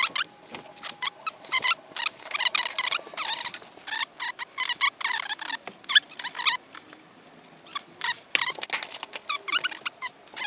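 Rapid, high-pitched squeaky chatter and clatter, as of a fast-forwarded workshop recording with its sounds sped up.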